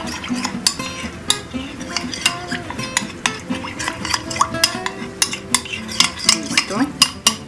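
A spoon stirring a cornstarch-and-water slurry in a small container, with quick, irregular clinks against its sides as the starch is dissolved so no lumps remain.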